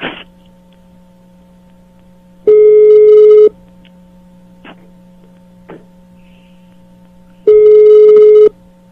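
Telephone ringback tone over a phone's speaker: two one-second beeps of a single steady tone, five seconds apart, the call ringing with nobody answering. A steady low hum from the line runs underneath, with a click at the start.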